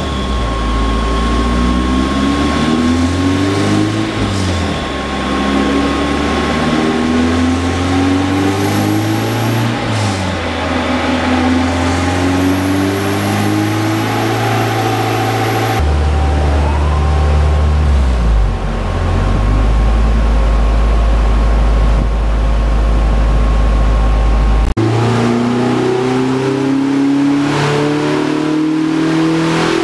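GBS Zero kit car's engine running under load on a rolling road dyno during ECU mapping. It rises in pitch through the revs again and again, holds a steady low drone at constant speed in the middle, then climbs again near the end.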